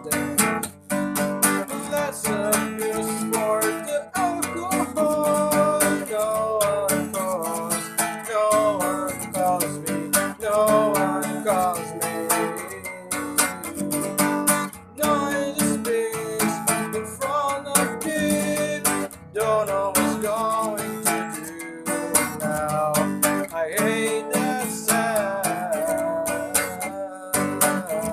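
Acoustic guitar strummed in steady chords, with a man singing a verse over it.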